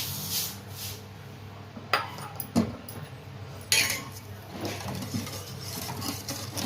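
Metal spoon clinking against a pan while sugar is spooned into milk tea: a couple of sharp clinks about two seconds in, then a short scraping rustle, over a faint steady hum.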